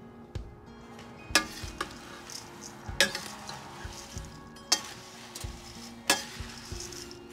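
A spatula stirring dry thin rice flakes in a steel pan: the flakes rustle, and the spatula knocks sharply against the pan four times, about every second and a half.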